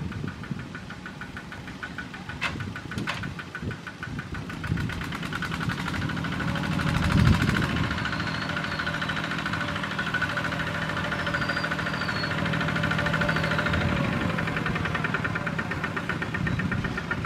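Kubota ZT-series walking tractor's single-cylinder diesel running with a fast, even knocking beat as it pulls a loaded trailer. It grows louder about six seconds in, then holds steady.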